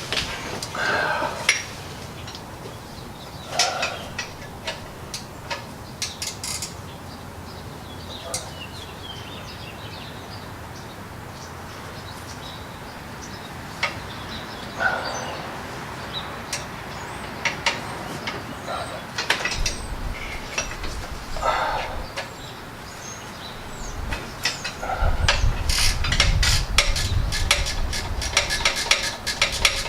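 Wrench working the oil drain plug on a John Deere 445 lawn tractor: scattered metallic clinks and taps. Near the end comes a dense run of quick clicks over a low rumble.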